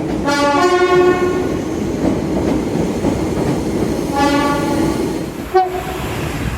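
British train's two-tone horn sounding twice, each time changing note partway through, over the steady rumble and rail noise of the train running past.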